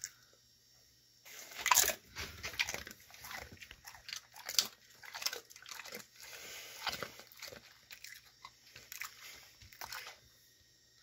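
A dog crunching and chewing a piece of dried beef lung treat: crisp, brittle crunches start about a second in, come thick and fast, with the loudest near the start, then thin out near the end.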